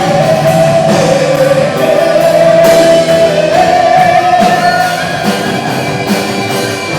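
Instrumental break of a rock-style gospel worship song played by a live band: a melody held in long notes over guitar and drum kit, with regular cymbal hits.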